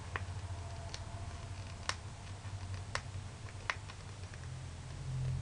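Small single-serve powder packet being torn open and handled: a few sharp, separate crackles of the packaging, about five in all, over a low steady hum.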